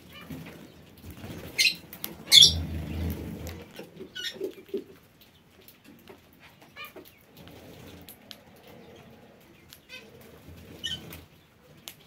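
Mixed aviary birds (parakeets and doves): two loud, sharp squawks about two seconds in, with a brief flutter of wings just after. Scattered short chirps and clicks follow.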